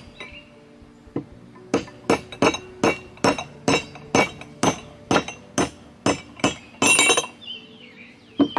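Rapid, ringing metal-on-metal blows, about two a second and ending in a quick flurry: a mallet driving a large bolt through to punch the wrist pin out of a Blackmer compressor's crosshead and connecting rod.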